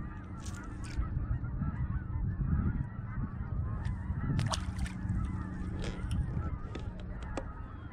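Motorized kayak's motor humming steadily as it trolls. A short splash comes about four and a half seconds in, as a released perch hits the water.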